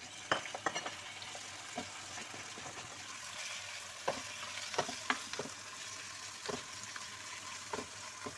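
Raw chicken pieces frying in hot oil with sautéed onion and garlic, giving a steady sizzle. Scattered sharp knocks come from a wooden spoon stirring against the pan.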